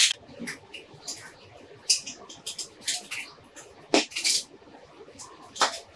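Corroded camera body being handled and turned over on a metal tray: irregular light clicks and taps, with sharper knocks at the start, twice about four seconds in, and near the end.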